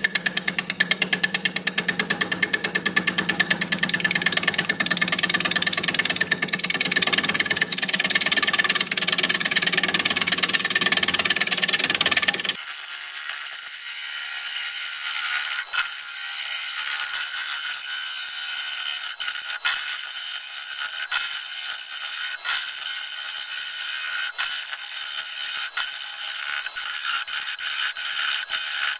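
Bowl gouge cutting the inside of a hard cherry plum bowl spinning on a wood lathe. For the first twelve seconds the cut has a rapid rhythmic chatter; after that the sound abruptly turns thinner and hissier, with scattered clicks.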